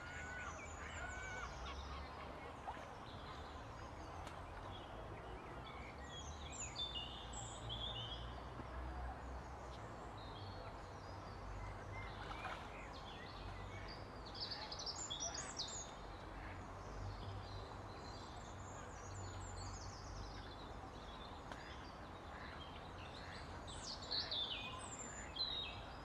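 Small birds chirping and singing off and on, high-pitched, over a low steady rumble, with faint splashing of mallard drakes scuffling in the water.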